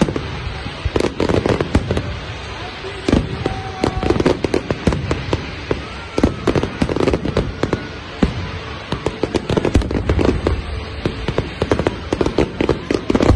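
Fireworks display in full barrage: many aerial shells going off in quick clusters of sharp bangs and crackles.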